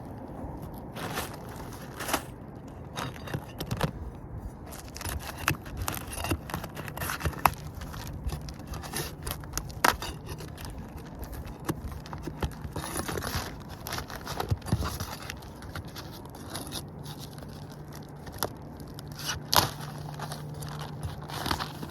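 A tarp being pulled off a shingle roof: crinkling and rustling with scrapes and scattered sharp clicks and knocks, over a low steady hum.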